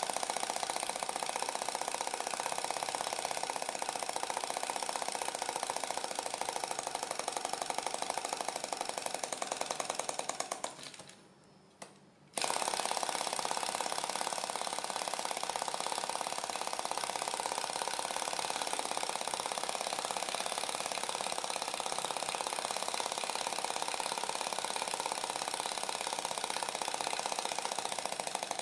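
Small flame licker (vacuum) heat engine running with a rapid, even mechanical clatter. About ten seconds in the clatter slows and dies away; a second or so later the engine is heard running at full speed again.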